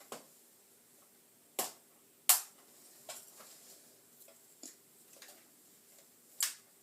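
Sharp plastic clicks and knocks, about six spaced out, the loudest a little over two seconds in: parts of a Buzz Bee Toys M1 toy rifle being handled and clipped together by hand.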